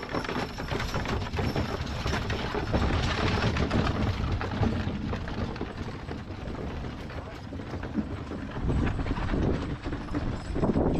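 Hooves of a draft horse clip-clopping on a dirt road as it pulls a wooden-wheeled covered wagon past, the wagon rattling as it rolls. Near the end more horses' hooves come closer.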